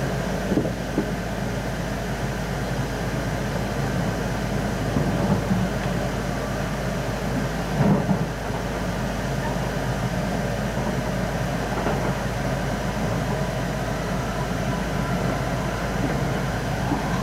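Keihan electric train running at speed, heard from inside the passenger car: a steady rumble and hum of wheels on rails, with a few short thumps, one about 8 s in.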